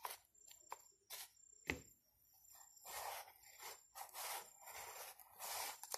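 Faint rustling and scraping of hands working foam lining and paper inside a cardboard box, with a few small clicks in the first two seconds and a run of scraping rustles in the second half.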